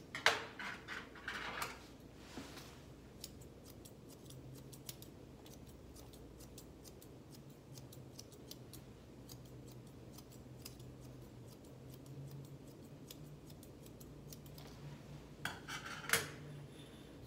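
Grooming shears snipping repeatedly through a West Highland White Terrier's coat: a long run of small, crisp, irregular snips, with louder clusters right at the start and again shortly before the end.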